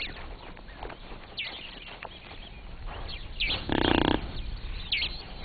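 Wild bush sounds: several short, high, falling whistled bird calls, and about two-thirds of the way through a half-second rasping, grunting animal call.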